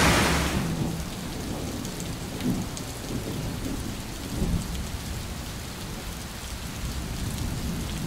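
Steady rain with low thunder rumbles, which swell twice. A heavier rush of water fades away about half a second in.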